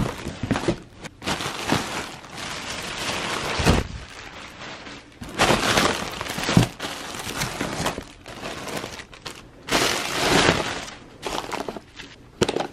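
Cardboard shipping box being opened and unpacked: flaps scraping and plastic packaging crinkling in several noisy bursts, with a couple of dull thuds.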